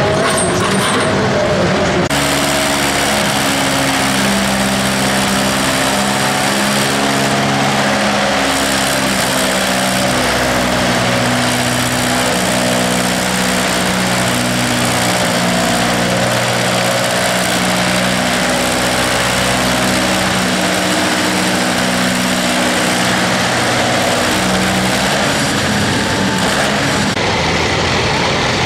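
Antique farm tractor engine running hard while pulling a weight sled, a steady engine note whose pitch wavers a little. The sound changes sharply about two seconds in and again near the end.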